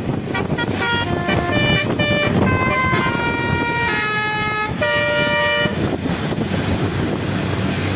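Indonesian bus telolet horn, a multi-note musical air horn of the basuri type, playing a quick tune of stepped notes that change pitch every fraction of a second, stopping after about five and a half seconds. A bus engine runs underneath, and noise carries on after the horn stops.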